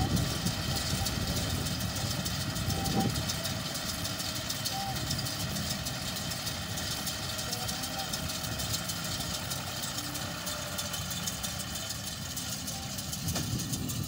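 Tractor engine running steadily as it pulls a working round baler through the field.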